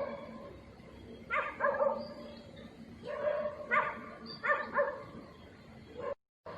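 Chinese rural farm dog barking: a series of short barks in quick groups of two and three.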